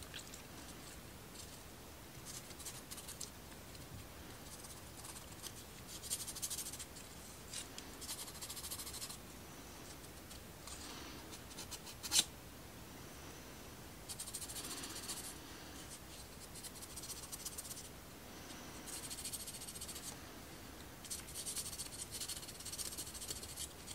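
Soft, scratchy sanding strokes on a thin wooden model-kit part, coming in short bouts of a second or two with pauses between. A single sharp tap sounds about halfway through.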